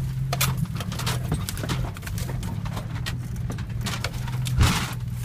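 Car engine running steadily at low revs, heard from inside the cabin, with frequent knocks and rattles as the car jolts over a rough, rutted dirt track. One heavier thump about four and a half seconds in.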